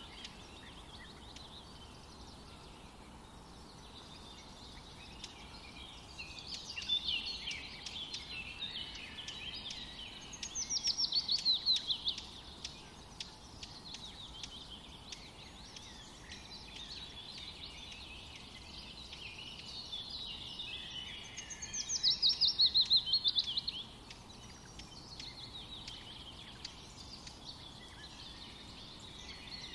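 Songbirds chirping and singing, with two loud, rapid trills that fall in pitch, about ten seconds in and again about twenty-two seconds in.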